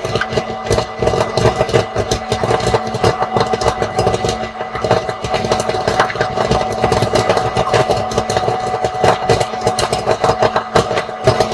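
Popcorn popping in a running popcorn machine: a steady motor hum with a dense, irregular crackle of kernels bursting.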